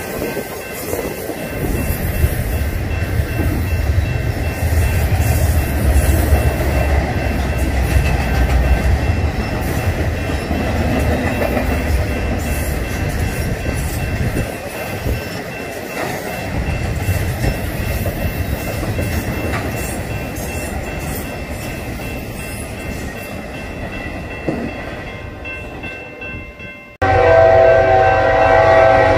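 Freight train of trailers on flatcars rolling past with a steady rumble of wheels on rail. Near the end the sound cuts abruptly to a loud, steady chord from an approaching BNSF diesel locomotive's air horn.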